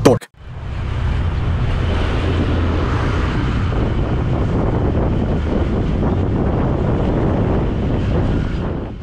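Vehicle travelling along a road: steady engine and road noise with wind buffeting the microphone, starting after a quick falling swoosh at the very beginning.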